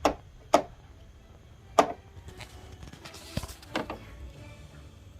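Four sharp knocks or taps at uneven intervals, with a dull low thump just past the middle.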